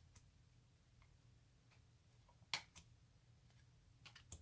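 Faint clicks and taps of glossy tarot cards being handled and flipped through, the sharpest about two and a half seconds in and a small cluster near the end, over a low steady hum.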